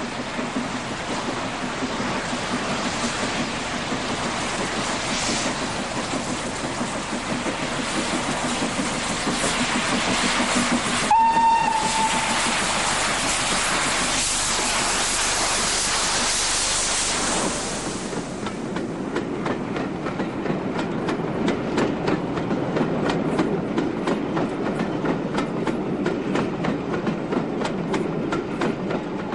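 Steam locomotive (BR Standard Class 4 4-6-0 75069) working a train. About a third of the way in it gives a short whistle, followed by several seconds of loud hiss. It then runs on with a steady rhythmic clicking of wheels over rail joints.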